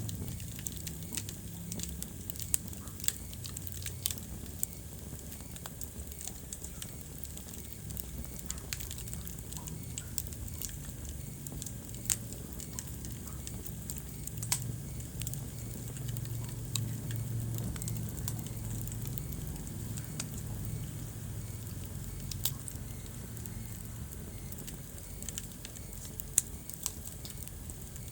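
Wood fire burning in a fireplace: a steady scatter of small crackles and occasional sharp pops from the burning logs over the low rush of the flames.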